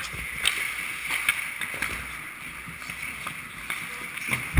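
Ice hockey skates scraping and carving across the ice with sharp clicks of sticks and puck in front of the net. Near the end comes one heavy thump, the loudest sound here.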